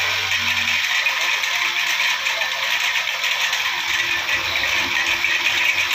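Honda GX35 four-stroke brush cutter engine running with a tiller attachment, its tines churning and rattling through the soil in a steady din.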